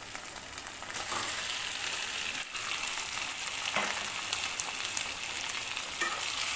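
Hot oil sizzling in a kadai as pre-fried chicken pieces are tipped into browned onions and stirred in. The sizzling steps up about a second in.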